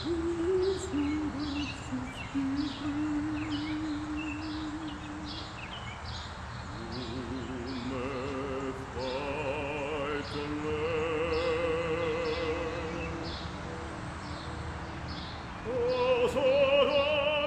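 Soundtrack music: one voice sings a slow melody in long held notes with vibrato, over a soft, regular high ticking beat.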